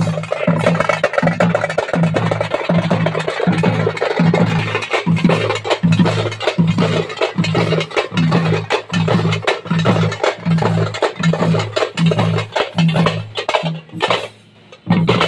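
A troupe of thappu frame drums beaten with sticks in a fast, dense rhythm over a deep beat that repeats about one and a half times a second. The drumming drops away for a moment near the end, then starts again.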